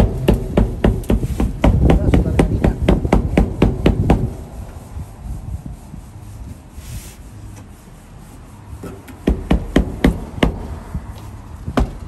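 Rapid knocking and rubbing as a 1961 Volkswagen Beetle's windshield glass is pressed and patted into its rubber weather strip while the rope in the seal's lip is pulled out. The knocks come about five a second for some four seconds, ease off, then return in a shorter run near the end.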